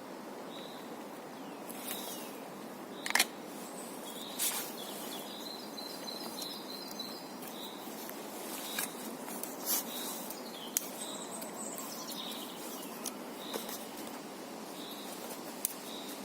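Steady outdoor background noise with a small bird chirping over and over, and several sharp clicks or knocks, the loudest about three seconds in.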